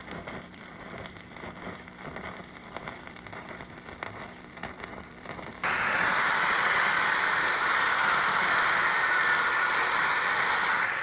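Stick-welding arc crackling with many small irregular pops. About halfway through it cuts abruptly to a much louder, steady hiss.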